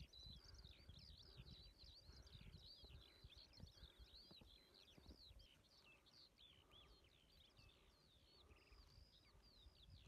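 Faint chorus of small birds chirping: many short, quick, overlapping calls, over a low rumble.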